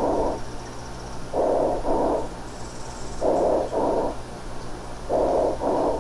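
Recorded tubular breath sound (bronchial breathing, soplo tubárico) heard through a stethoscope over the chest: a hollow, tubular blowing, about one breath every two seconds, each a pair of short sounds, inspiration and expiration nearly equal in length, with no crackles. It is the sound of well-aerated lung around a resolving pneumonia focus; the short inspiration reflects the restriction the remaining pneumonia still places on lung expansion.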